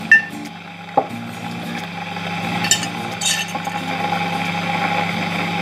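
A spoon clinks against a ceramic mug a few times, then liquid is poured from a jug into the mug, a steady pouring that builds from about two seconds in.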